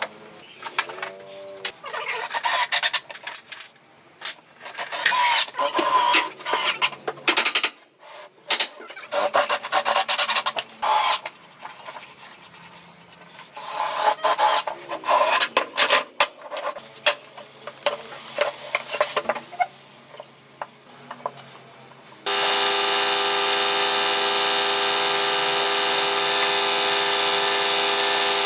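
A hand tool is rubbing or rasping across wood in irregular bursts of strokes. Near the end a power tool motor switches on suddenly and runs at a steady pitch.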